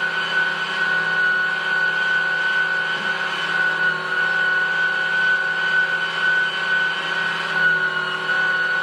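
Electric meat grinder running steadily with a high whine, mincing chicken liver.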